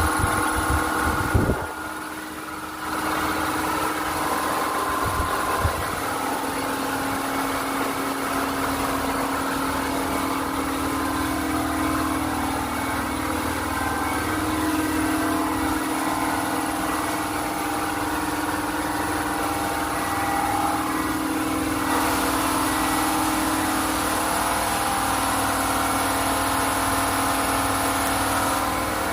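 A motor running steadily with a constant hum and hiss, dipping briefly about two seconds in.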